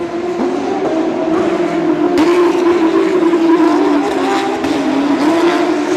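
Porsche 911 GT3 Cup race cars' flat-six engines running at high revs on track, a steady high engine note that dips slightly in pitch a couple of times and grows louder about two seconds in.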